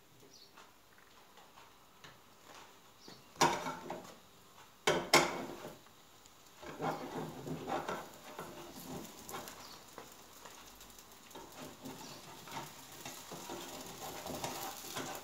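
Crepe frying in a pan on a gas burner, with a silicone spatula scraping and working under it. Two loud knocks against the pan about three and a half and five seconds in.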